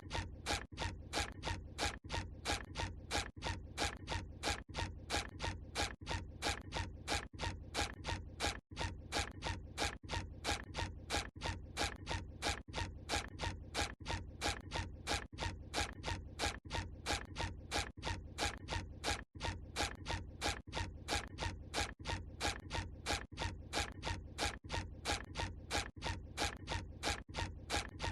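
The SpongeBob SquarePants cartoon walking sound effect: a quick, even run of footstep sounds, about three a second, looped, with a brief break twice.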